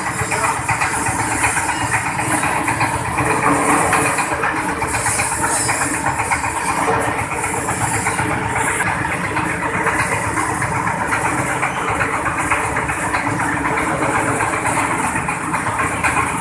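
Small stationary single-cylinder diesel engine running steadily, driving a cassava peeling drum and a cassava chopper that is cutting peeled cassava into chips.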